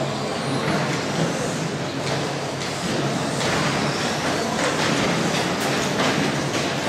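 Several 1/10-scale radio-controlled short course trucks racing: a steady mix of whining motors that rise and fall as the trucks accelerate and brake, and tyres on the track, with a few short clicks.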